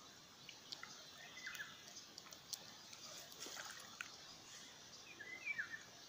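Faint outdoor ambience: a small bird gives two short chirping phrases, about a second and a half in and again near the end, over a soft steady hiss with a few faint ticks.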